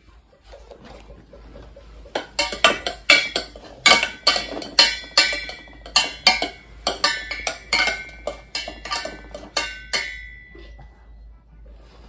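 A wooden spoon banging and scraping inside a small stainless steel saucepan: a quick, irregular run of ringing metallic clanks, roughly two or three a second, starting about two seconds in. The last clank rings out near the end.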